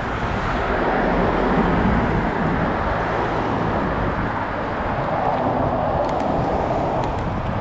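Steady rushing of wind and road noise on a bicycle-mounted camera as a loaded touring bicycle rolls along an asphalt street.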